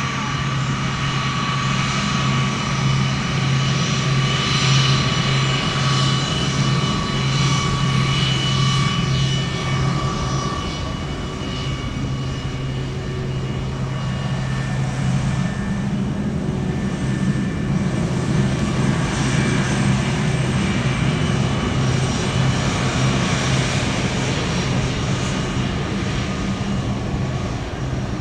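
Jet airliner engines running with a steady hum and whine, the level swelling slightly now and then but not fading away.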